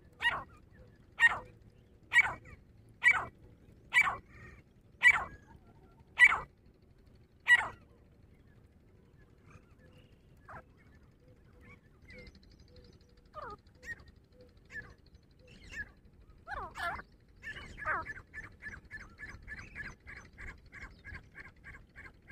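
Grey francolin calling: eight loud, harsh calls about one a second, then a few scattered softer notes, then near the end a fast run of short repeated notes, about three a second.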